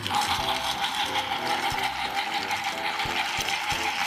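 Motorized Thomas TrackMaster toy engine's small geared motor whirring steadily as it pulls cargo cars along plastic track, with scattered clicks from the wheels and track.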